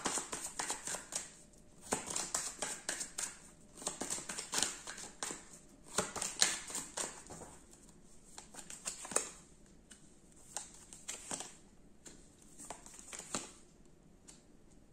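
A deck of tarot and oracle cards being shuffled and handled: runs of crisp clicks and flicks in clusters with short pauses between, thinning out near the end.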